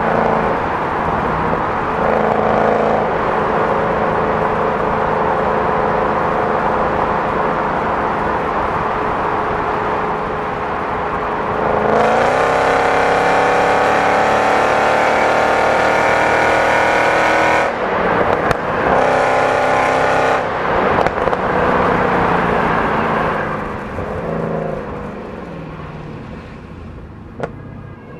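Mercedes-Benz C63 AMG's 6.2-litre V8 running hard at speed. About halfway through it comes on full throttle, its pitch climbing for several seconds, then it cuts briefly twice, as on shifts or lifts, and eases off, fading near the end.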